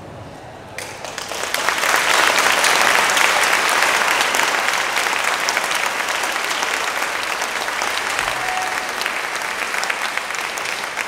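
Audience applauding. The clapping starts about a second in, is strongest a couple of seconds later, and slowly tapers off.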